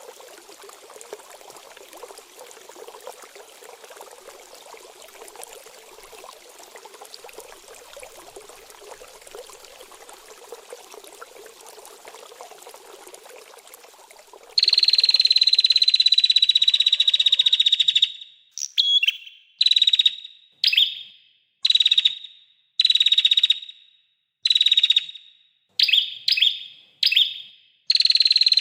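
Steady sound of trickling, flowing water that cuts off abruptly about halfway through, replaced by a small songbird's loud, high, rapid buzzing trill. The trill is first held for a few seconds, then repeated in about ten short bursts with brief gaps.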